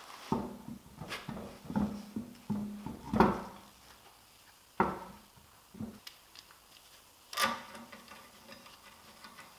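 Clanks, clicks and knocks of a van's alloy wheel being refitted: the wheel and its bolts knocking against the hub and tools being handled, with a few much sharper knocks among the lighter clinks.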